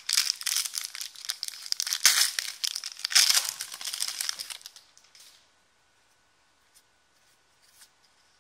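Foil wrapper of a trading-card pack being torn open and crinkled, a dense crackle for about four and a half seconds. After that only a few faint ticks.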